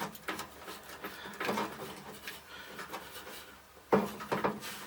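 Handling noises from work behind a truck's dashboard: scattered light clicks, knocks and rubbing of parts being handled, with a quicker, louder run of knocks about four seconds in.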